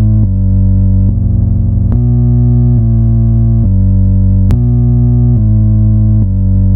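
Loud synthesized alarm sequence from a fan-made Emergency Alert System alarm: low, buzzy sustained synth notes that step to a new pitch about every second. The pattern loops, with a click about four and a half seconds in where it restarts.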